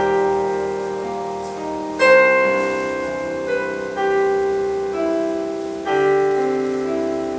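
Solo piano playing slow, sustained chords and notes, each new chord struck every second or two and left to ring and fade.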